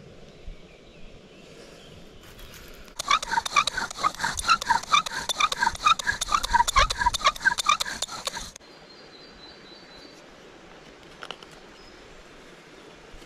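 Bow drill in use: a wooden spindle spun back and forth in the notch of a wooden fireboard, squeaking rhythmically with each stroke of the bow as the friction builds heat for an ember. It starts about three seconds in and stops abruptly about five and a half seconds later; faint bird chirps follow.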